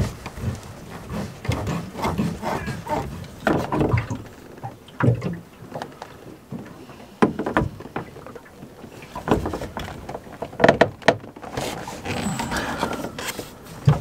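Irregular clicks, knocks and scrapes of hands and tools working a spin-on diesel fuel filter loose in a cramped compartment under a boat's deck, with louder clusters of knocks now and then.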